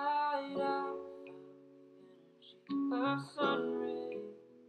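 Background music with plucked string instruments, playing in two short phrases with a pause of about a second and a half between them.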